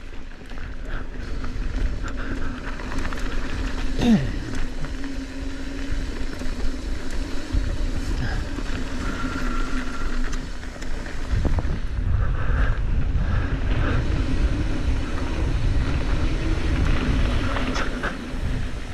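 Mountain bike rolling down a dirt singletrack: wind buffeting the mounted action camera's microphone and knobby tyres on packed dirt, with scattered clicks and rattles from the bike.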